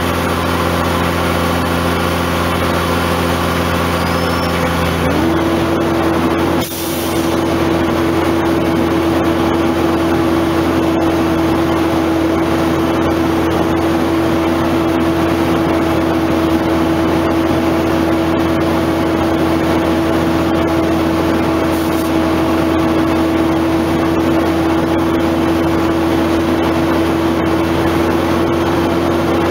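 Heavy bed truck's diesel engine running steadily under load while towing a cement bulker. About five seconds in the engine note steps up in pitch and holds, and a short air hiss follows soon after.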